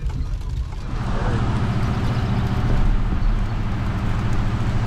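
Dodge Ram 1500 pickup driving on a wet road, heard from the cab: a steady engine and road drone, with tyre hiss from the wet pavement growing louder about a second in.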